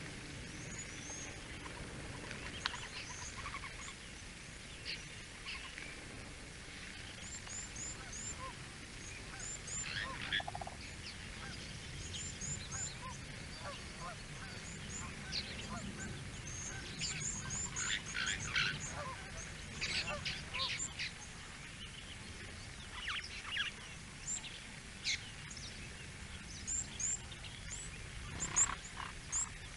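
Wild birds calling in the bush: clusters of short, high chirps and scattered harsher calls repeat throughout, over a steady low background rumble.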